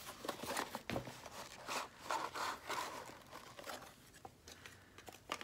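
Hands unpacking a boxed reed diffuser kit: rustling and scraping of packaging with many small clicks and taps.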